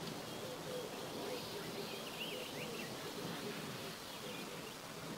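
Steady outdoor background noise with a few faint, quick chirps about two seconds in.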